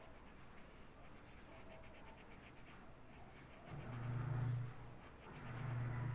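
Pencil scratching on notebook paper in short drawing strokes. Two louder low drones of about a second each come in, one just past the middle and one near the end.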